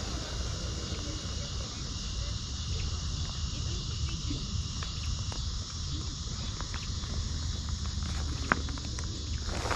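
Air hissing steadily out of the held-open valve of an insulated sleeping pad as it deflates, over low wind rumble and a thin, steady insect tone. A couple of sharp clicks come near the end.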